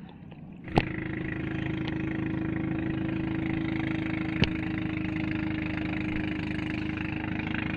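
A small boat engine starts with a click about a second in and then runs steadily at idle.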